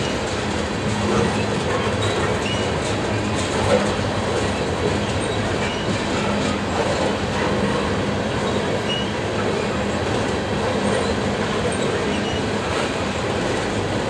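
Freight train of loaded tank cars rolling past close by: a steady rumble and clatter of steel wheels on the rails, with a few faint, short high squeaks from the wheels.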